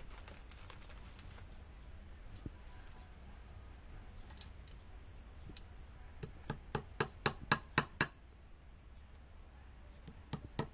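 Claw hammer tapping a small nail through a strip of inner-tube rubber into wood: a quick run of about ten light strikes, about five a second and growing louder, starting about six seconds in, then another run starting near the end.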